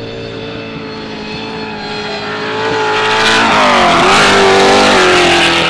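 Trophy truck's V8 engine at high revs, growing louder as the truck comes up and passes close by about three to five seconds in, its pitch dipping as it goes past. A hiss of tyres throwing dirt peaks with the pass, and the sound fades near the end.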